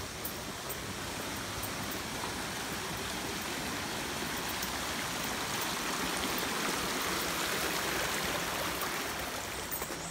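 Shallow stream running over rocks: a steady rush of water, a little louder in the middle and easing near the end.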